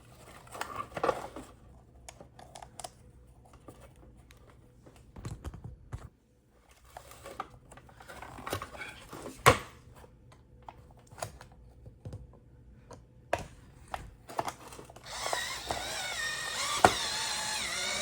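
Small plastic parts clicking, tapping and knocking as they are handled and fitted together. Near the end a small motor whirs for about three seconds, its pitch wavering.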